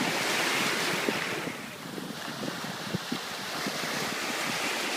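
Sea waves washing onto a beach, with wind on the microphone. The surf noise eases about two seconds in and builds again near the end.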